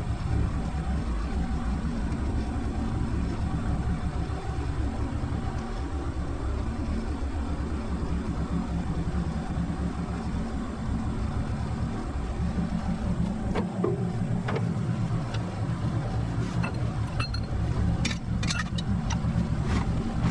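Mule utility vehicle's engine running steadily under way, a low drone with a fast even pulse. A few sharp clicks and rattles come in near the end.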